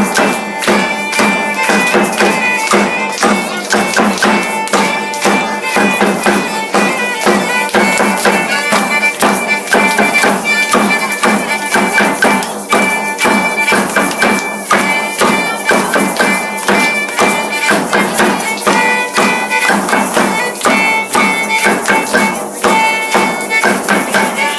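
Many plastic egg shakers rattled at once by a roomful of children, a dense, continuous shaking with no common beat.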